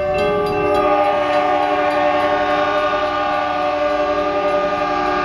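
Locomotive air horn sounding one long, loud, continuous blast: a chord of several steady notes held without a break, over the low rumble of the train. It is the routine warning blast for an at-grade road crossing.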